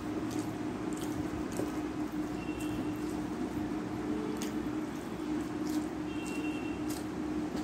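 Bare fingers squishing and mixing rice with cooked bottle gourd greens on a steel plate, with wet mouth sounds of eating and scattered soft clicks, over a steady background hum.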